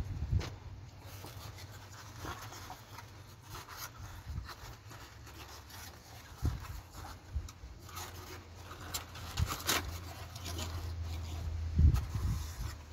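Cardboard packaging being handled and opened by hand: irregular rustling, scraping and tapping of the box, over a low wind rumble on the microphone.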